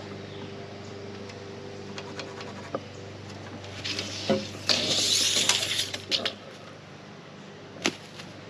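Clicks and scraping of hand tools (tape measure, pencil and metal speed square) handled against a rough-sawn board while it is marked out, with a louder rasping rush of about a second and a half near the middle, set off by a sharp click. A faint steady hum runs underneath.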